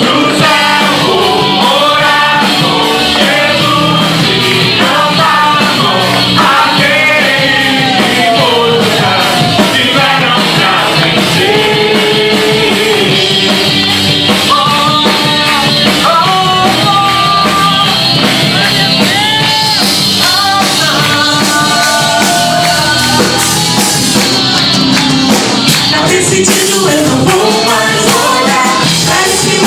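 Christian worship band playing a song with a singer's voice over it, loud and steady, with drum and cymbal hits throughout.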